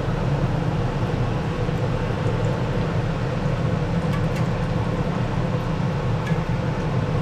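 Battered cobia frying in a pot of hot oil: a steady rumbling hiss with a few faint pops.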